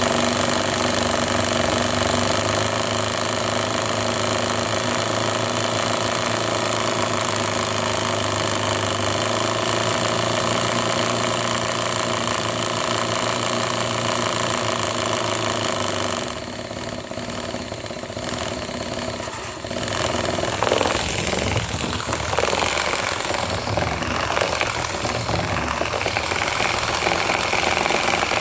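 Small electric toy motor and gearbox running on high voltage from a bench power supply, giving a steady mechanical hum. About sixteen seconds in the hum drops and turns uneven and changing.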